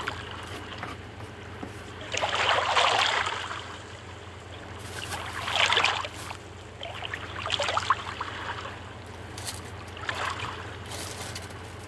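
Food frying in oil in a pan, sizzling and crackling in several swelling bursts over a steady low hum.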